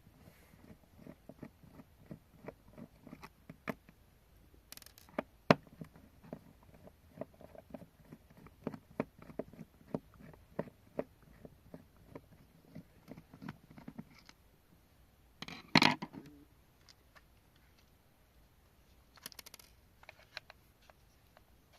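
Small plastic parts and tools being handled during a toy phone repair: a run of light clicks and taps with a few short scrapes, and one louder clatter about sixteen seconds in.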